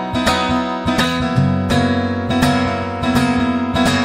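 Acoustic guitar strummed in a steady rhythm of chords, about three strokes a second, with no singing: the instrumental opening of a song played by a solo performer.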